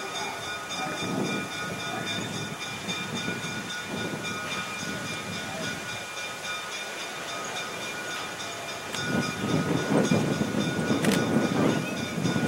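South Shore Little Joe 803, a 2-D-D-2 electric locomotive, moving along the track with a steady high whine from its electrical equipment over a rolling rumble. The rumble grows louder for the last few seconds.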